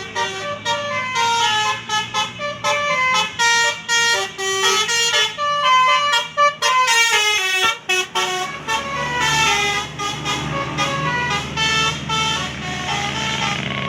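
Indonesian bus 'telolet' musical air horn playing a fast tune of short stepped notes. From about eight seconds in, a heavy bus engine comes up underneath while the horn notes carry on more faintly.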